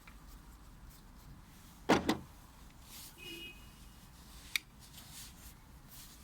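Handling noises from unpacking the tool: two sharp clacks in quick succession about two seconds in, a faint brief squeak about a second later, and a single light click near the end.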